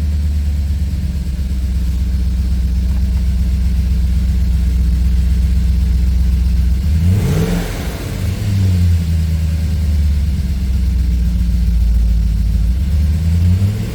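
BMW E39 540i's 4.4-litre V8 running on a cold start, idling steadily, with a short rev of the throttle about halfway through and the revs rising again near the end.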